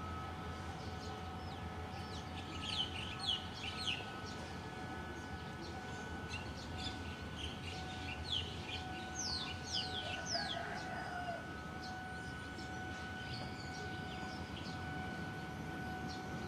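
Birds calling over a steady background hum: two clusters of short, sharp downward chirps, about three seconds in and again around nine seconds, and a brief lower call just after ten seconds. A low part of the hum fades out about six seconds in.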